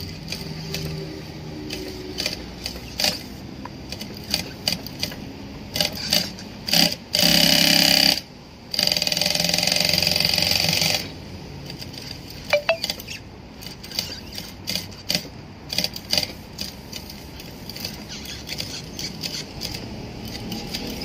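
Jack H2 walking foot sewing machine stitching binding through a bias folder onto thick rubber matting: mostly uneven metallic clicking of slow, stitch-by-stitch sewing, with two spells of steady fast running around the middle, the first about a second long and the second about two seconds.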